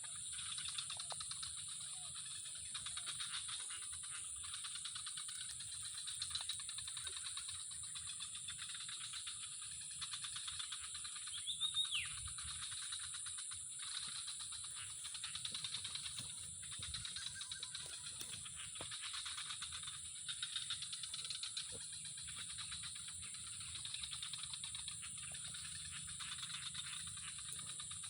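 Steady, high-pitched chorus of trilling insects, with a fast, unbroken rattling pulse. A brief falling whistle cuts across it about twelve seconds in.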